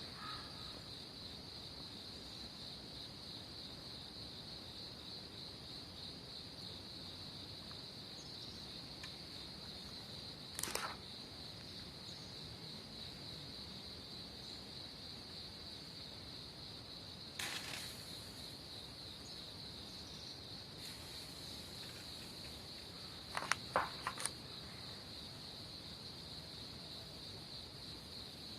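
Steady trilling chorus of insects. A few brief knocks or clatters break in, around a third of the way through, again past halfway, and a quick cluster of them later on.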